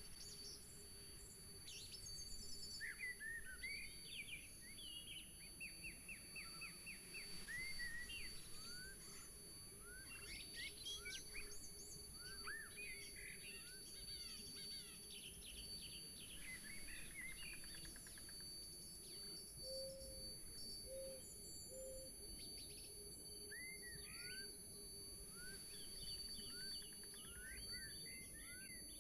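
Faint birdsong from several small birds: many short chirps and quick rising and falling whistles, scattered throughout, over low, steady outdoor background noise.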